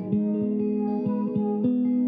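Background music led by plucked guitar notes over a steady beat.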